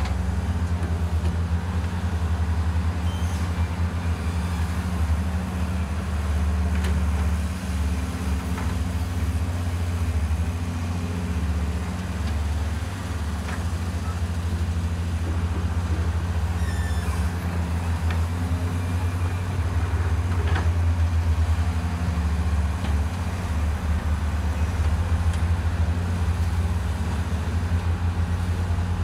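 Diesel engines of a JCB tracked excavator and a Doosan DX160 wheeled excavator running steadily as they dig and load sand into trucks: a low, even drone with scattered faint knocks.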